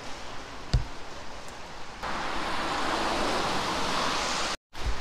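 City street noise on a wet road: a steady hiss of traffic. It gets louder about two seconds in and holds steady. There is a single low thump just under a second in.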